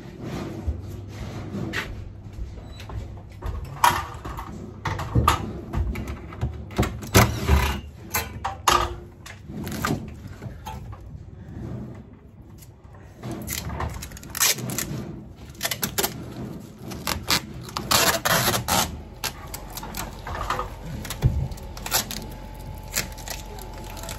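Irregular scrapes, knocks and crinkling from handling a sheet-metal duct fitting and its foil bubble insulation, with several longer rasping bursts in between.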